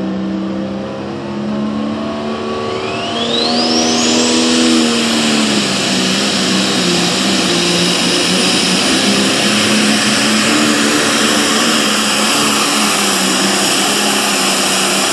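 Case IH heavy super stock pulling tractor's turbocharged diesel engine at full throttle on a pull. It revs up over the first few seconds with a rising turbo whine, then runs hard and steady under load.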